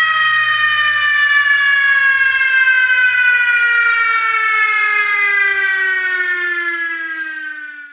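Fire truck siren winding down: one long wail whose pitch falls slowly and steadily, fading out just before the end.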